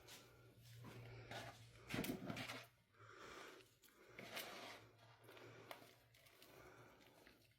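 A person breathing heavily close to the microphone: a run of noisy breaths, about one a second, with a louder one about two seconds in.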